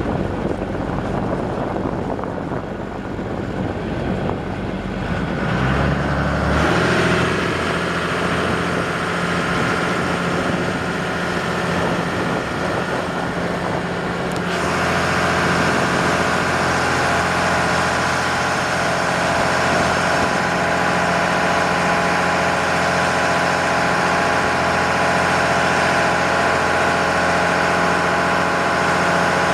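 A boat's inboard engine running steadily. About six seconds in its tone shifts to a clearer hum, and about fourteen seconds in it becomes louder and brighter.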